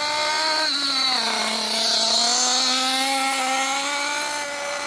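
Nitro RC buggy's Alpha Plus glow engine running at a quarter to half throttle during break-in, running rich and leaning out a little on the pull. Its steady buzzing note drops in pitch about a second in, then holds.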